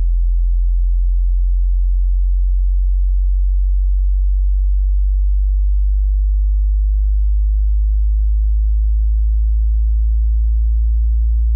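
Hearing-test sine tone: a single pure, very deep tone below about 60 Hz, held steady in loudness and creeping slightly upward in pitch.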